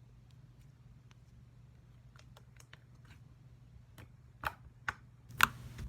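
Glitter slime being squeezed and poked, giving small sticky clicks and pops that come more often and get louder, with three sharper pops near the end, over a faint steady low hum.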